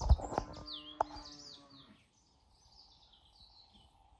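Birds chirping, with a thump at the start followed by a low steady tone for about two seconds and a sharp knock about a second in.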